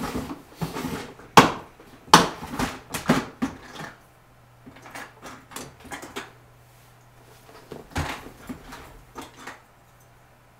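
Handling noise of small hard objects being picked up and set down on a table: a series of sharp clicks and clatters, the loudest about a second and a half and two seconds in, with a few more around eight seconds. A faint steady low hum runs underneath.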